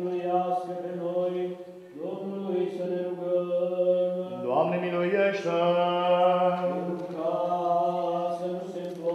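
Orthodox liturgical chant: long drawn-out sung phrases over a steady held low note, with a phrase that climbs in pitch about halfway through.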